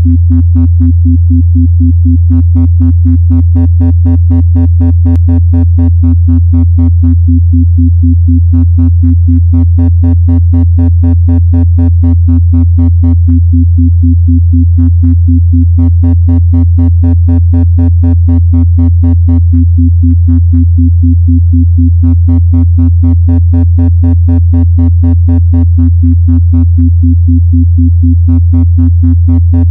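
Electronic isochronic tone beating at 4 Hz, a theta-range brainwave-entrainment pulse, over a steady low hum. A brighter, buzzier layer of the pulsing tone comes in for several seconds at a time and drops out briefly between stretches.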